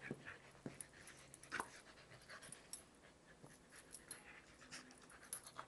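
Two dogs play-wrestling, heard faintly: scattered soft scuffles and short dog sounds.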